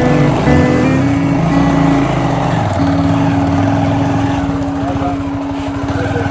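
Motorcycle engine running steadily under way, with a held drone that changes pitch a few times in the first two seconds and then stays level.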